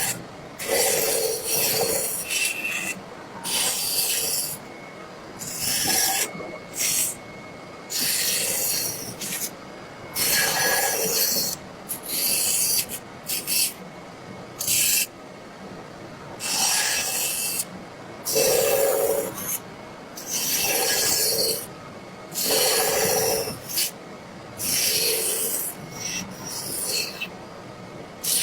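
Repeated rasping strokes of a hand tool scraping or abrading wood, each about a second long, roughly one every two seconds.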